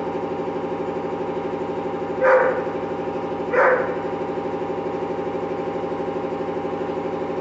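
A dog barking twice, a little over two seconds in and again about a second later, over an engine idling steadily with a fast, even pulse.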